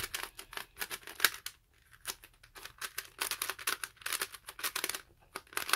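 A Lego-brick 3x3 puzzle cube being turned quickly by hand while it is scrambled: fast runs of plastic clicking and clacking from the turning layers, with short pauses about two seconds in and near the end.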